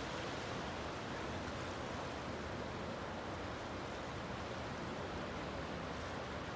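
Small waves breaking and washing onto a sandy beach: a steady, even hiss of surf.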